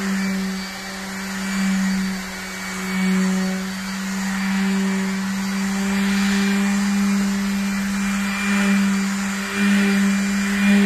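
Electric orbital palm sander running with a steady motor hum, its pad rasping over a wet car body panel; the rasp swells and eases as it moves. This is wet-sanding the bodywork in preparation for repainting.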